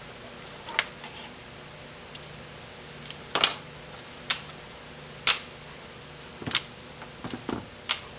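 Small metal transmission valve-body parts and hand tools clinking and tapping on a workbench as the valve body is taken apart: about eight sharp, irregular clicks and clinks, the loudest about three and a half seconds in, over a steady low hum.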